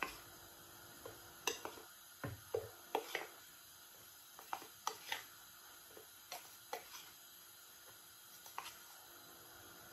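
Metal tablespoon tapping and scraping against a plate and a plastic bowl as custard powder is spooned in: a string of light, irregular clicks and taps.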